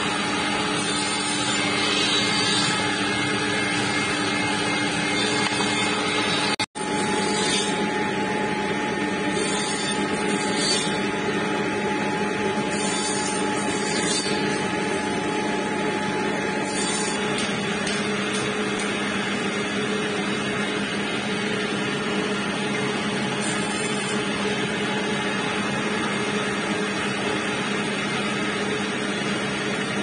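Electric woodworking machines running with a steady motor hum, a belt sander among them, as wood strips are sanded. The sound drops out for an instant about seven seconds in. For several seconds after that, short hissing strokes come and go over the hum.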